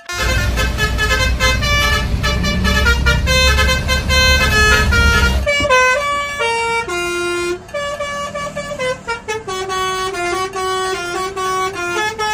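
Bus 'telolet' musical horn (Basuri-style) playing a tune of quick stepped notes, over a low engine rumble that cuts off about five and a half seconds in.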